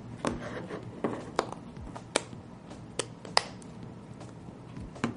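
Back case of a first-generation iPod Touch being pressed and snapped back onto the body: a series of short, sharp clicks, about half a dozen spread through the few seconds.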